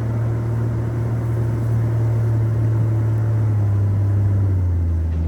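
Jeep engine running under steady load as the Jeep plows through deep snow: a low, even drone that dips slightly in pitch near the end.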